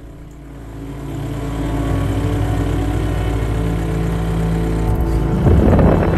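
Mahindra Bolero DI Turbo's diesel engine running as the SUV drives off across wet grass. It gets louder about a second in, holds steady, and turns rougher near the end.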